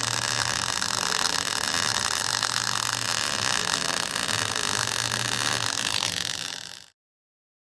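Arc welding crackle and hiss, steady and continuous, as a cap bead is laid with a weaving motion of C's or circles. It cuts off abruptly near the end.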